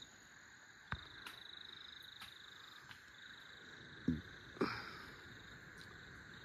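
A faint, high-pitched cricket trill in bouts of about two seconds with short breaks between them. A few soft knocks come about a second in and again around four seconds in.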